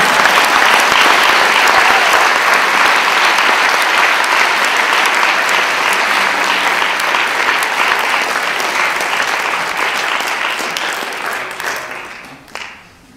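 Audience clapping loudly, a dense, steady crackle of many hands that dies away over the last few seconds.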